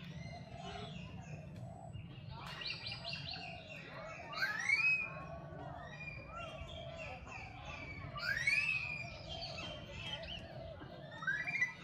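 High-pitched animal calls: a run of short chirps and squeals, with two louder calls that sweep up in pitch and hold, about four and eight seconds in.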